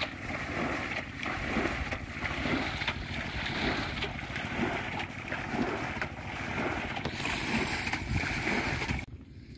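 Water being bailed out of a small muddy pond with a metal bowl, each scoop thrown out with a splash about once a second. The splashing stops abruptly near the end.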